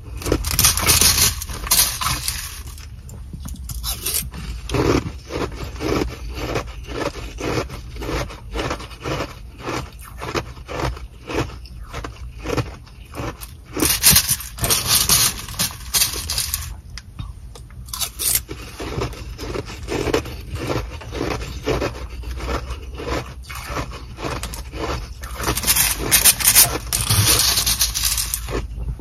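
Close-up chewing of Sonic nugget ice, a steady run of crunches. Louder stretches about a second in, midway and near the end are the plastic spoon scooping ice inside the plastic bag and the bag crinkling.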